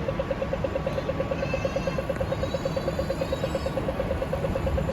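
Street traffic rumbling, with a rapid electronic beeping, about ten short beeps a second, that stops shortly before the end.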